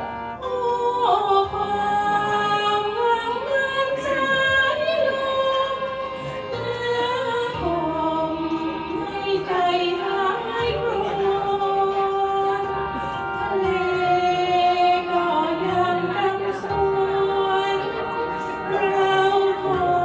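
A singer singing a Thai song into a handheld microphone through a PA, holding long notes over a recorded backing track.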